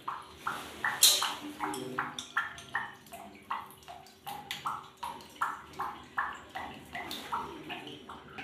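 Water dripping quickly into a partly filled plastic bucket below a wall mixer tap: a steady run of plinks, two or three a second. A sharper metallic click comes about a second in.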